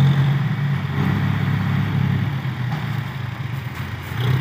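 John Deere tractor's diesel engine running steadily, easing off a little about three seconds in.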